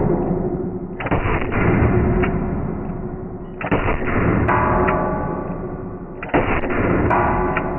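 Three revolver shots about two and a half seconds apart, each followed by a long echoing decay. The gun is a Chiappa Rhino 60DS revolver fitted with a steel muzzle brake and match weight.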